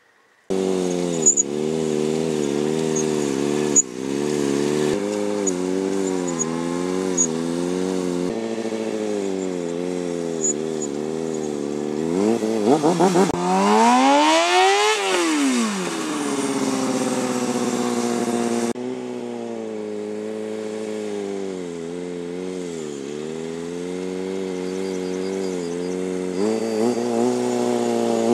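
Stunt motorcycle engine revving up and down in repeated swells as the throttle is worked, typical of holding the bike in a wheelie. About halfway through the pitch climbs high and falls back. The sound jumps abruptly several times where clips are joined.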